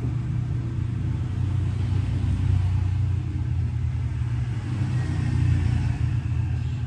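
A steady low rumble with no clear pitch, swelling a little twice.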